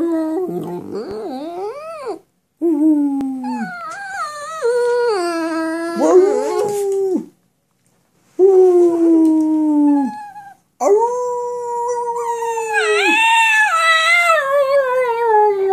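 A small spaniel howling in long, wavering yowls, about four in a row separated by short pauses, the pitch sliding up and down within each and the last one falling away near the end.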